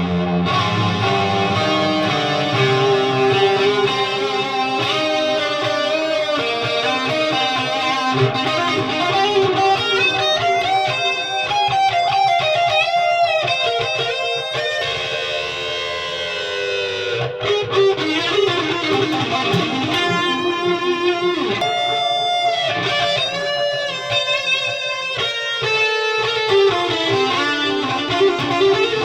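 High-gain distorted electric guitar played through a Noise Pollution Plush Box overdrive pedal: fast single-note lead runs with string bends, and a long note sliding down in pitch around the middle.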